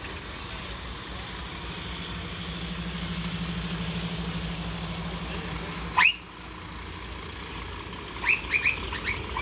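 Heavy lorries in a slow convoy passing close by, a diesel engine drone swelling between about two and six seconds in, then fading. About six seconds in there is one sharp electronic chirp, and near the end a run of quick chirping tones, about three a second, starts.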